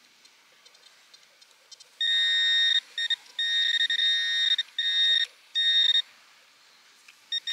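A handheld metal-detecting pinpointer probing the sand gives off a loud, steady, high electronic tone about two seconds in. The tone runs in on-off stretches for some four seconds, and a few short beeps come near the end. The tone signals buried metal, here another 5-złoty coin.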